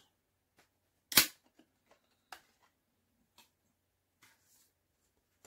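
Plastic clicks from a Blu-ray steelbook and its disc trays being handled as the discs are taken out: one sharp click about a second in, then a few fainter clicks.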